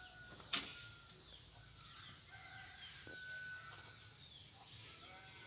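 Faint bird calls, short held notes and small falling chirps, with a single sharp click about half a second in.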